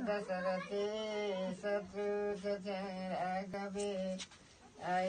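A male voice chanting a melodic, mantra-like line over a steady held drone, breaking off briefly about four and a half seconds in before starting again.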